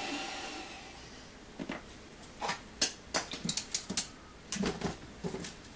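A plastic filament spool being handled on its 3D-printed spool holder: a string of light clicks and knocks, the busiest stretch in the middle.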